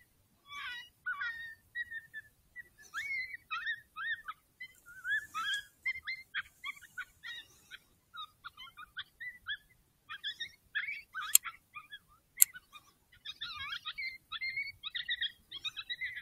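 A chorus of coyote yips and wavering howls: dense short, high calls that bend in pitch. Two sharp clicks about a second apart come about two-thirds of the way through.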